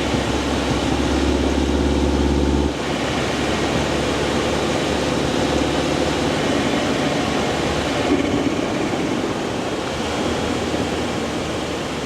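Mini Clubman S's B48 turbocharged four-cylinder engine running with a steady low drone, which drops away suddenly about three seconds in, leaving a steady rushing noise for the rest.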